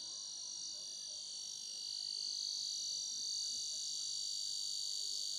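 Ultrasonic rat repeller running, giving off a steady high-pitched electronic tone with a slight regular pulse about once a second. This is the audible part of the output it uses to drive rats away.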